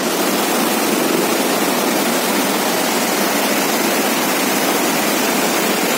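Mountain stream rushing and splashing over boulders in a steady, loud roar of white water. It starts abruptly at a cut.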